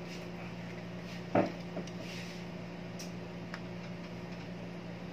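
A single sharp knock about a second and a half in, then a couple of faint ticks, from small hard parts being handled on a workbench, over a steady low hum.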